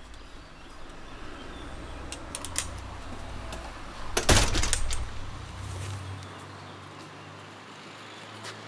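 Low rumble and metallic rattling of a heavy metal door or its mechanism, with a loud burst of clanking about four seconds in. The rumble fades about six seconds in, leaving a low steady hum.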